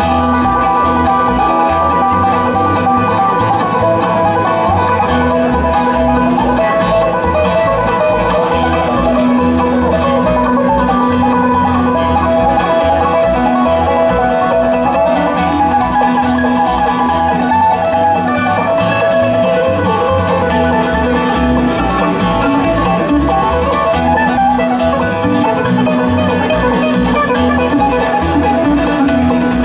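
Bluegrass band playing an instrumental break with banjo, guitar and bass, with no singing.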